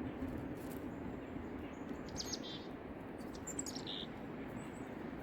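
Small bird chirping in two short bursts, about two seconds in and again near four seconds, over the steady rush of a small river.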